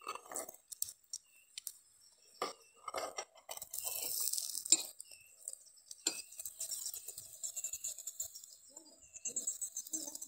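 Metal spoon clinking against an enamel cup and a cast-iron pan as oil is scooped and spread over a chapati frying in the pan. The clinks come as irregular single taps, with a short hiss about four seconds in.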